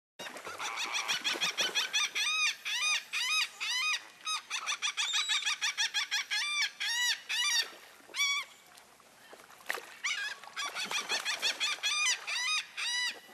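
Seagulls calling, a rapid run of short cries that rise and fall, several a second, with a brief lull about nine seconds in.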